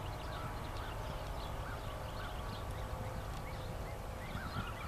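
Hoofbeats of a horse cantering on the sand footing of an outdoor arena.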